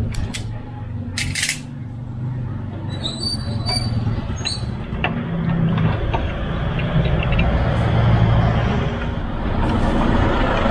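A hand wire-crimping tool clicks twice, sharply, in the first second and a half as a terminal is crimped onto a wire. A steady low rumble then builds and stays loud through the rest.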